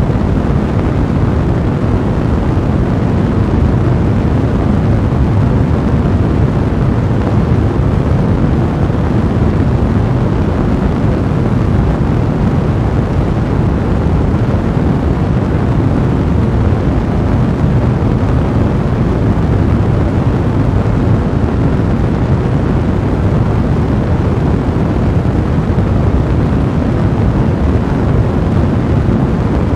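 A blazing fire burning steadily: a dense low rumble with fine crackling throughout.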